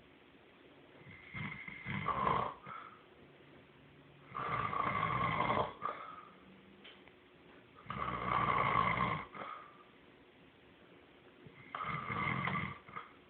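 Snoring in a slow rhythm: four snores, each about a second and a half long, roughly three and a half seconds apart.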